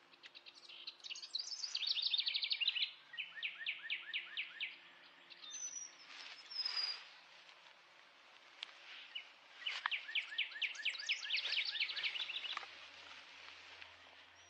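A songbird singing two long songs, each a fast run of high chirping notes that falls in pitch and then slows, with a short high whistle between them.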